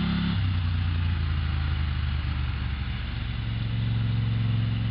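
A vehicle engine running steadily. Its pitch drops sharply about half a second in as the throttle comes off, then rises a little near the end.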